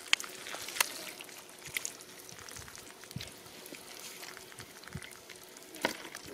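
Hands squelching and splashing through shallow muddy water and wet mud, with several sharp slaps and splats.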